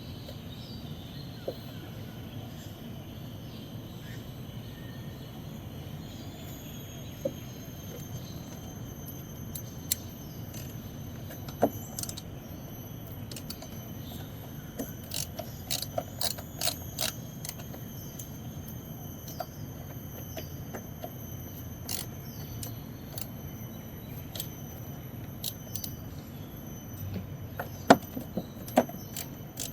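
Sparse clicks and knocks of hand work on a car's plastic air box and its screws, the loudest two near the end, over a steady low hum and faint high steady tones.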